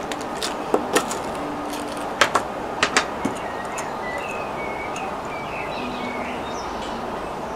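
Sharp little metallic clicks and clinks, about seven of them and mostly in pairs, over the first three and a half seconds, as an air rifle is reloaded with pellets from a metal pellet tin. A steady outdoor background hum runs under them.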